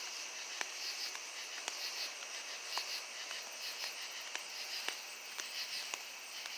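Crickets chirping in a steady, even rhythm of about three chirps a second, with scattered faint clicks.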